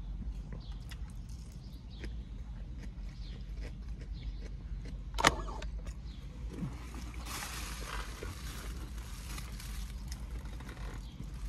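A clear plastic salad container and fork being handled in a car, over a steady low hum from the vehicle. One sharp knock comes about five seconds in, followed a little later by a few seconds of plastic rustling and crinkling.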